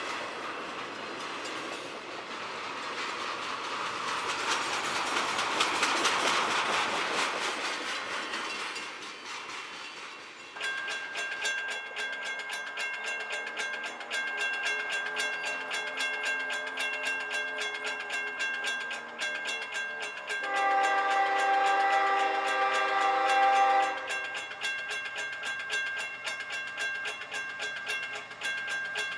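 Double-stack intermodal train running past on the rails, wheels clattering, fading toward ten seconds in. A bell then rings steadily. A CSX ES44AC locomotive approaching head-on sounds its multi-chime horn once, about three seconds long, a little past two-thirds of the way in.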